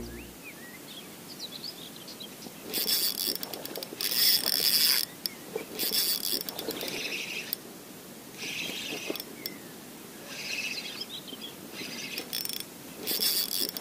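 Spinning reel cranked in short spurts, a whirring that comes in bursts of under a second every one to two seconds, as a hooked chub is played on light tackle. Faint bird chirps sound in the gaps.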